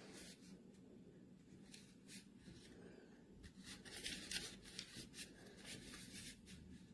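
Near silence with faint handling noises: soft rustles and light clicks, more frequent past the middle, over a low steady hum.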